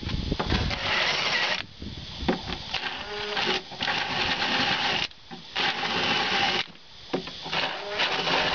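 Cordless drill with a twist bit boring holes through a benchtop board. It runs in about four bursts of one to three seconds each, with short pauses between.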